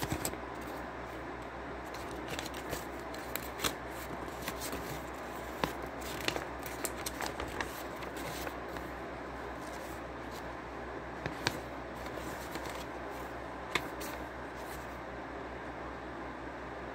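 A sheet of paper rustling and crinkling in short, scattered bursts as a letter is unfolded and handled, over a steady low hiss.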